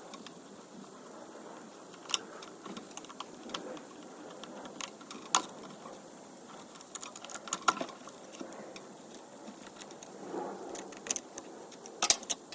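Irregular light clicks and clatter of hand tools and plastic parts as the air box is being taken off a Stihl BR600 backpack blower, with a quick run of clicks near the end.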